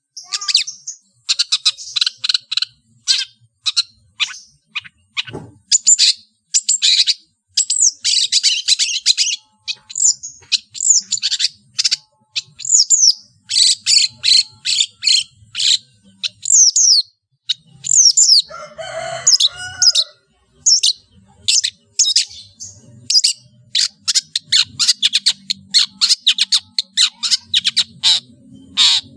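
Long-tailed shrike (cendet) singing a fast, varied run of sharp chirps and quick down-slurred whistles, packed with mimicked calls of other birds. About two-thirds of the way through comes a brief harsher, rasping passage.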